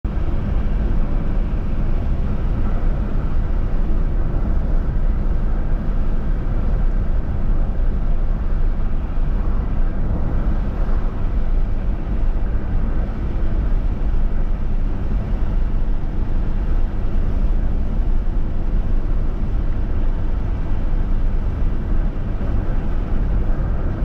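Steady low rumble of a car travelling along a highway, heard inside the cabin: tyre and running noise, even throughout with no sudden sounds.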